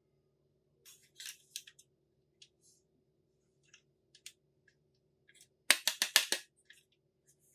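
Small clicks and taps of miniature toy kitchen pieces being handled, with a quick run of about five sharp clicks near the end, the loudest part.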